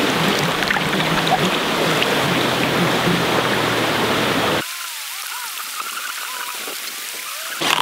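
Steady rushing of a shallow creek flowing over rocks. About four and a half seconds in it cuts off suddenly to a quieter, wavering gurgle of water trickling into a bag.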